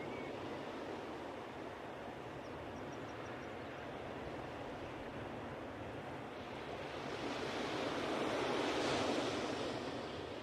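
Ocean surf washing onto a beach: a steady rush of waves that swells as a larger wave comes in about seven seconds in, peaks near nine seconds, then ebbs.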